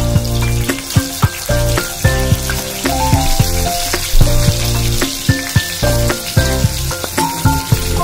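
Sliced garlic sizzling as it fries in hot oil in a pot, with a steady hiss. Background music with a steady beat plays over it.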